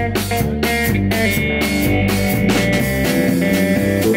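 Live blues band playing an instrumental passage: electric guitar, electric bass and drum kit, with no singing.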